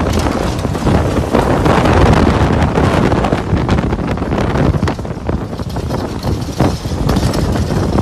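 Typhoon-force wind gusting hard and buffeting the microphone, a loud, continuous rushing with sharp gusty jolts.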